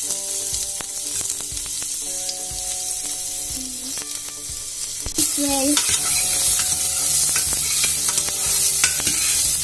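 Sliced onion sizzling in hot ghee in an aluminium pressure cooker, with a metal spoon scraping and clicking against the pot as it is stirred. The sizzle gets louder about five seconds in.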